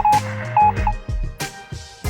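Background music: quick repeated high notes over sustained bass notes and a beat.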